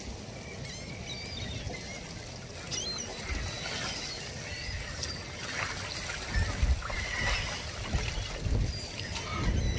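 Gulls calling in short chirps over small waves lapping at the shore, with wind gusting on the microphone in the second half.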